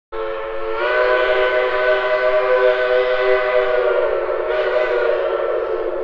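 A multi-chime steam locomotive whistle blowing one long blast, several notes sounding together as a chord with hiss over them. The chord lifts slightly in pitch about a second in, and the hiss swells again about four and a half seconds in.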